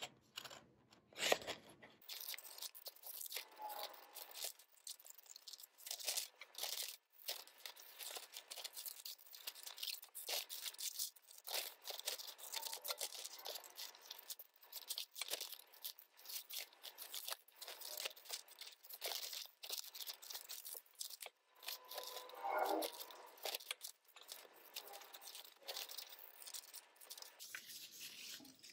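Scissors cutting through printed paper: many short, irregular snips, with the sheet rustling as it is turned and handled.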